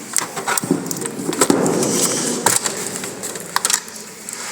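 Computer system unit parts being handled during disassembly: sharp metallic clicks and knocks, with a rough scraping slide about a second in that lasts a second and a half.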